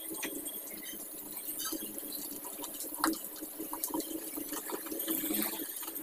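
Wet, squishy sounds of a thick ground urad and moong dal batter being beaten by hand in a steel bowl, with scattered light clicks.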